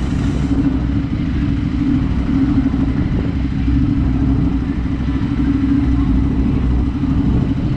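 Motorcycle engine running steadily at a constant speed, a loud low drone with no revving.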